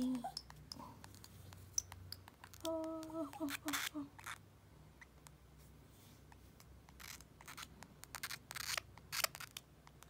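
Scattered soft clicks and scratches of a baby lovebird shuffling about on a denim-covered lap and nibbling at fingers, thickest in the last few seconds. A short hummed voice with a few repeated notes comes about three seconds in.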